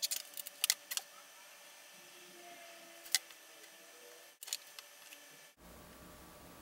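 Faint, scattered light clicks and taps of a plastic Nerf blaster shell being handled on a table: a cluster in the first second, one about three seconds in and a few more about four and a half seconds in.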